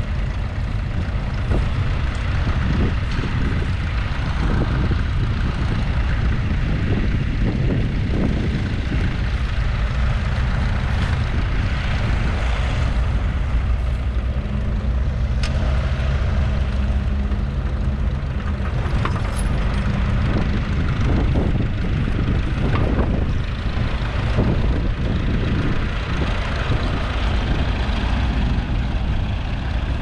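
Wind buffeting the microphone: a loud, continuous low rumble. A faint steady hum joins it for several seconds around the middle.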